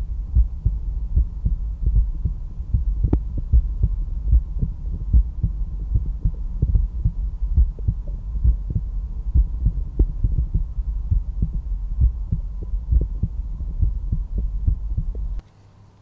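Heart sounds heard through a stethoscope over the tricuspid area, the fourth rib space left of the breastbone: a resting heart beating steadily in lub-dub, with a low hum under the beats. The sound cuts off shortly before the end.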